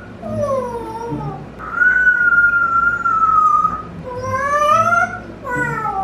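African grey parrot whistling a string of calls: a falling call, then a long whistle held about two seconds that slowly drops in pitch, then a rising call and a short falling one near the end.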